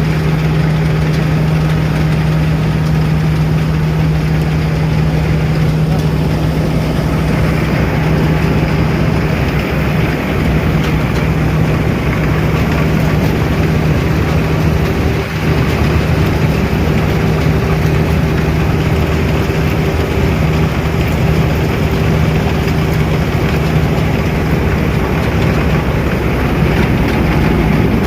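Mahindra Arjun Novo 605 tractor engine running a Balkar B-525 rice combine harvester: a steady, deep engine hum that holds one even pitch.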